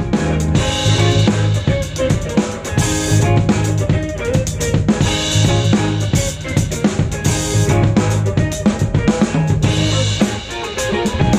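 Drum kit played with sticks, kick drum, snare and cymbals, in a live band with electric guitar and other pitched instruments.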